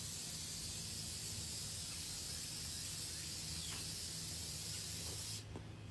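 Aerosol can of hydrographic activator spraying in one continuous hiss onto hydro-dip film floating on water, cutting off sharply near the end.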